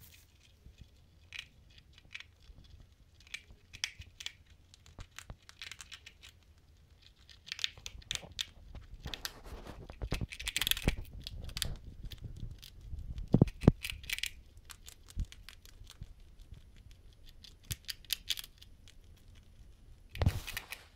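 Degus gnawing at a hanging pressed seed, flower and herb treat: a run of small crunching and scratching clicks. A few dull knocks come in, loudest about halfway through and again just before the end.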